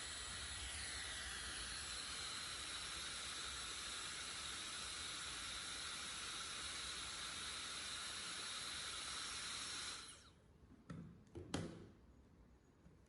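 High-speed hair dryer blowing on its cold setting: a steady rush of air with a faint high motor whine. It switches off about ten seconds in, and a couple of short knocks of handling follow.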